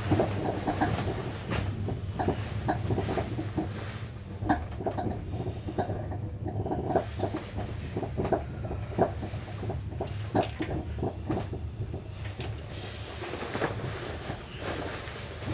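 Cotton bedsheet rustling and flapping in irregular handfuls as it is thrown over and tugged around a person lying on a train berth, over the steady low hum of the railway coach.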